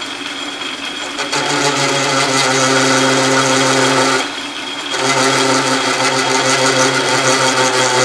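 Metal lathe running while a grooving tool cuts a snap ring groove in a long slender axle rod held in a collet chuck. About a second in, a loud pitched buzz sets in as the tool bites. It stops briefly around four seconds in as the feed pauses, then resumes.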